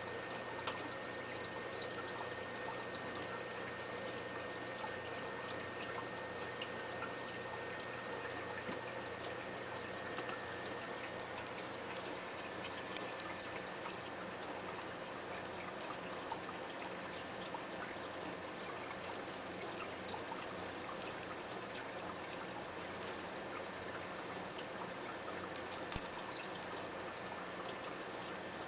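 Aquarium water trickling and bubbling steadily from the tank's filter and aeration, with a faint steady hum underneath.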